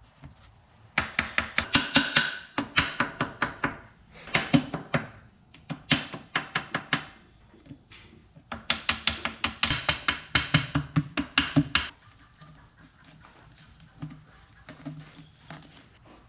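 A hammer tapping gasket paper against the edge of a tractor's cast transmission housing to cut out a new gasket: quick runs of light taps, several a second, in four spells that stop about twelve seconds in.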